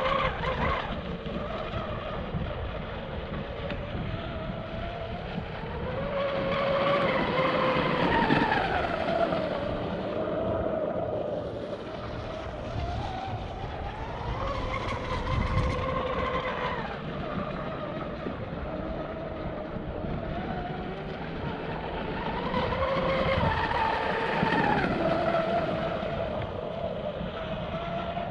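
Pro Boat Blackjack 42 RC catamaran's electric motor whining on 8S power. Its pitch rises and falls in three long sweeps as it speeds up and backs off, over a steady low rushing noise.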